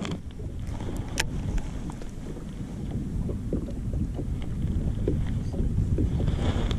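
Wind rumbling on the microphone and choppy lake water slapping against the hull of a fishing boat, with one sharp knock about a second in.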